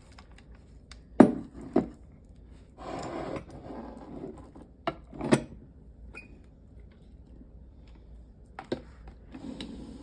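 Pieces of a ceramic mug set (mug, warmer, lid, spoon) being set out on a table: a handful of sharp knocks and clinks, two close together about a second in, two more around five seconds and one near the end, with a short rustle of handling between.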